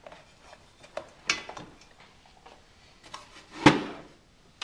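Handling noises from reassembling an air compressor: scattered light clicks and scrapes of metal and plastic parts, with one louder knock about three and a half seconds in.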